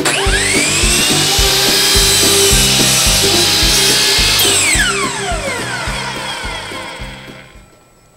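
Hitachi C12RSH 12-inch sliding compound miter saw starting with a rising whine, running at full speed as the blade cuts through a wooden board, then the trigger is released and the blade spins down with a long falling whine. Background music with a steady beat plays underneath.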